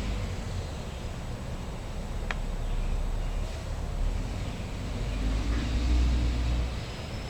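Garbage truck engine running with a low rumble that swells louder for a couple of seconds near the end. A single sharp click comes about two seconds in.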